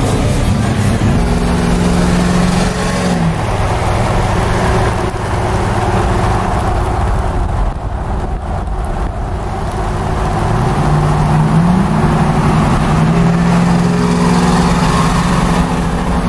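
Pickup truck engines running as the trucks drive past, with the engine note rising and falling as they accelerate and ease off.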